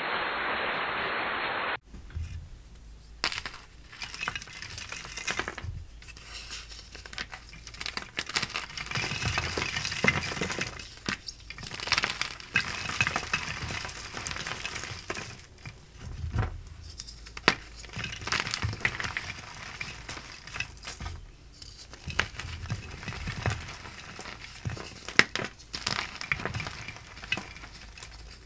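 Hands crushing and crumbling soft blocks of gym chalk into powder: irregular crunching and crackling, with sharp little snaps as pieces break. It opens with a steady hiss that cuts off about two seconds in.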